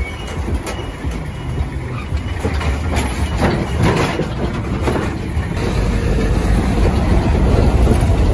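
Heavy-truck traffic noise from close beside a container lorry: a steady low rumble of engine and tyres, with a few sharp rattles in the middle. It grows louder in the last couple of seconds.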